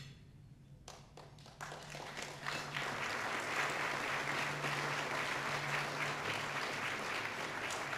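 Audience applauding: a few scattered claps about a second in, swelling within a couple of seconds into steady applause.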